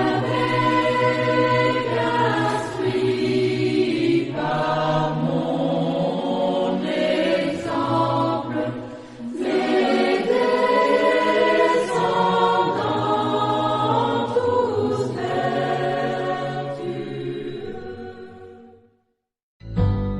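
A choir singing a sacred choral piece in slow, sustained chords, fading out just before the end. A strummed acoustic guitar comes in right at the end.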